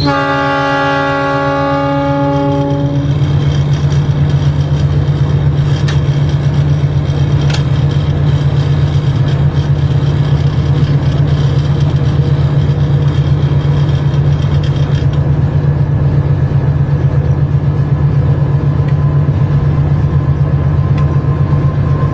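A train horn sounds a multi-tone chord for about three seconds, over the locomotive's engine running with a steady, loud low drone that continues after the horn stops.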